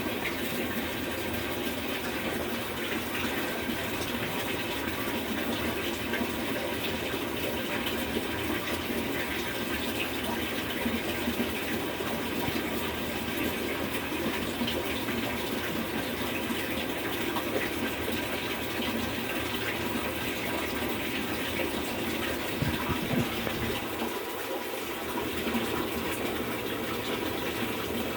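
Water running steadily into a Samsung top-load washing machine as it fills, an even rush with no break. There is one brief knock about three-quarters of the way through.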